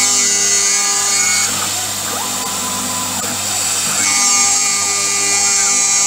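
Computer-controlled milling machine cutting an aluminium wheel hub: a steady high-pitched machining whine made of several tones over a hiss, louder for the first second and a half and again from about four seconds in.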